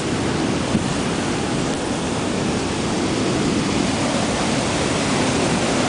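Water rushing through the open gates of a river dam: a loud, steady rush of noise that does not change.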